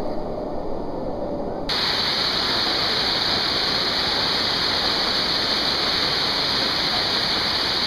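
Rushing water of a cascading waterfall, a dense steady roar. It is muffled at first, then about two seconds in it suddenly opens up into a full, bright rush.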